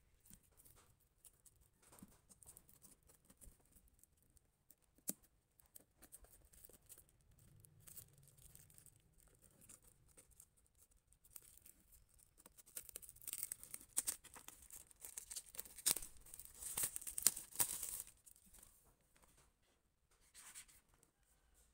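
Shrink-wrapped paperback books being handled: the plastic wrap crinkles and rustles, with light taps and clicks. It is louder for about five seconds past the middle.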